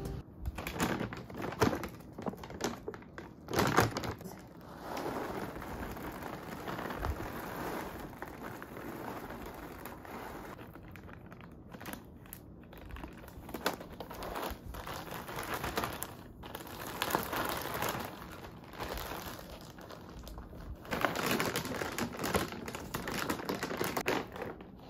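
Irregular crinkling and rustling of something being handled, with scattered small clicks and knocks.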